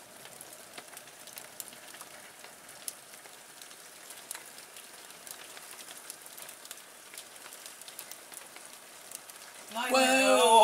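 Steady patter of rain and hail, with many sharp ticks of hailstones striking the window and windowsill. Near the end a person's voice breaks in loudly.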